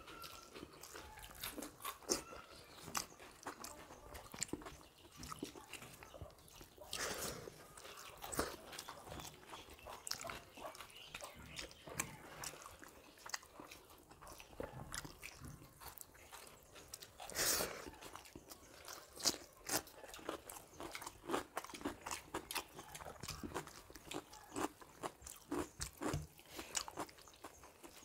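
Close-miked eating: chewing and biting of rice with soya chaap curry and raw salad eaten by hand, heard as an irregular run of small crunches and clicks, with a few louder crunches.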